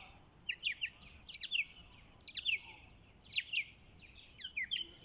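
A songbird singing short phrases of quick, high, downward-sweeping notes, about one phrase a second.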